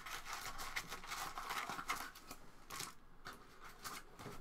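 Foil trading-card packs crinkling and scraping against the cardboard as they are handled and pulled from an opened hobby box, in a run of short, faint crackles.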